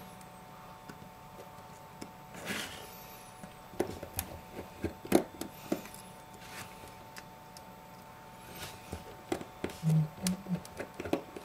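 Light scattered clicks, ticks and brief scrapes of a precision screwdriver turning out the tiny screws of an iPhone 5 home-button bracket, with small parts being handled.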